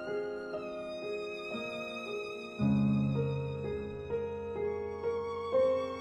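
Solo violin playing a slow, sustained melody with vibrato over lower held accompaniment chords that change every second or so. A fuller, deeper bass layer enters about two and a half seconds in.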